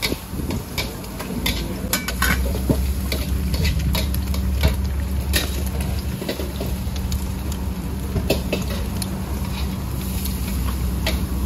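Metal spatula scraping and clanking irregularly against a wok during stir-frying, over sizzling food, with a steady low hum underneath that grows louder about two seconds in.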